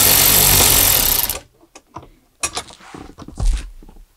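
Electric ratchet spinning a socket to back out one of the 10 mm bolts holding the head unit. It stops abruptly about a second and a half in, followed by a few light clicks and knocks as the loosened bolt is handled.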